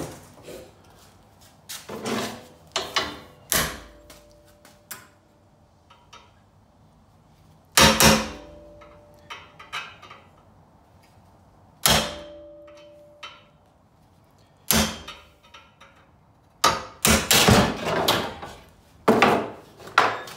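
Hammer blows on a steel bar clamped in a bench vise: a dozen or so sharp metallic strikes at uneven intervals, several in quick succession near the end, two of them ringing briefly. The blows are meant to break a spot weld, which holds.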